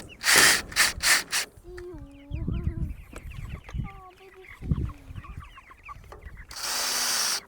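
Chickens clucking, with a scatter of high chick-like peeps around them. Loud noisy bursts in the first second and a half, and another lasting about a second near the end.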